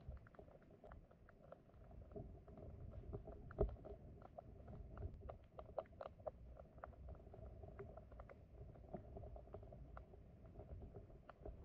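Faint sound of a flowing stream heard underwater: a low, muffled rumble with many small scattered clicks and ticks.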